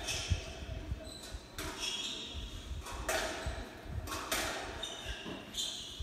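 Irregular knocks and short squeaks echoing around a squash court between rallies, heard through a TV speaker.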